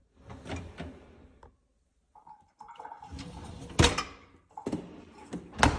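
Kitchen clatter over a steady rushing noise, with two sharp knocks, one about four seconds in and one near the end.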